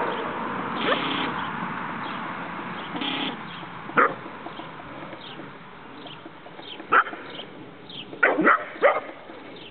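Young collie puppies giving short, high yips: a few scattered single yips, then three in quick succession near the end.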